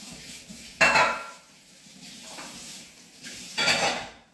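Two sudden clatters of kitchenware, about three seconds apart, the first with a brief metallic ring, over faint background noise.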